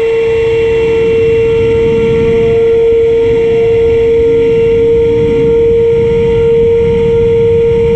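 Electric motor and propeller of a foam delta-wing RC plane running at steady throttle: a loud, steady high whine. Wind buffets the microphone underneath.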